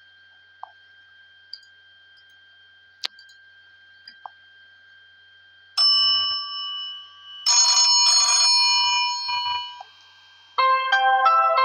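Ringtones playing through the Vodafone Smart N11 smartphone's speaker. After a faint steady whine with a few soft clicks, a bright chime sounds about six seconds in and fades, then a bell-like ring is struck twice and rings out. Near the end a quick run of electronic keyboard-like notes begins.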